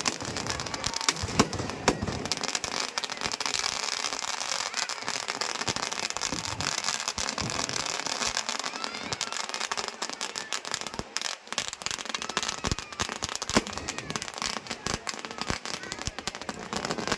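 Fireworks and firecrackers going off in rapid succession: a dense, continuous crackle, with a few louder bangs in the first two seconds.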